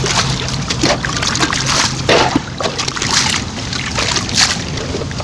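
Water splashing and sloshing in irregular scoops and pours as the water that has flooded a leaking wooden boat is bailed out by hand with a plastic bag.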